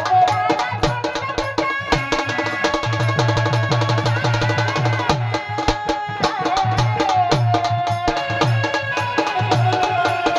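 Song music with a fast, steady drum beat and a melody line over it.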